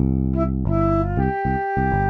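Instrumental background music: a flute holding long notes over a steady bass line.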